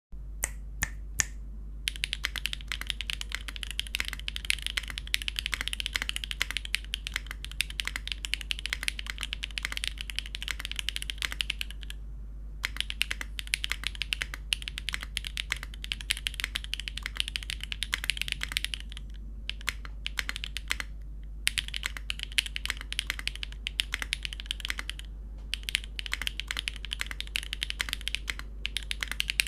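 Typing on a Machina Cloudnine mechanical keyboard with a carbon fiber plate, Siliworks x Gateron Type R switches and GMK keycaps. A few separate keystrokes open, then fast continuous typing follows, with a handful of brief pauses. A steady low hum sits underneath.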